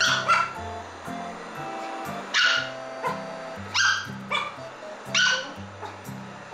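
Toy poodle barking in short, sharp barks, about five spread a second or so apart, at a moving robot vacuum cleaner it treats as an intruder. Light background music plays underneath.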